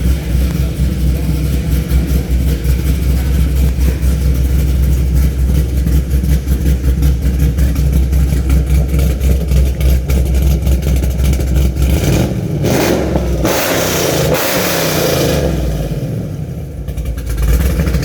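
Loud Camaro engine idling with a rapid, uneven pulsing rumble, then revved hard for a few seconds about twelve seconds in before dropping back to idle.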